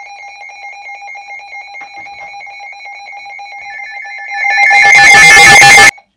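Several NOAA weather radios sounding their alert test tones together: a fast-pulsing beep overlapping a high two-note warble and a steady high tone. About four and a half seconds in, a very loud harsh, distorted blast swamps the beeps, then everything cuts off suddenly.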